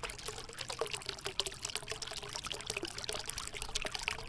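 Water trickling and splashing steadily, a continuous hiss full of tiny drips.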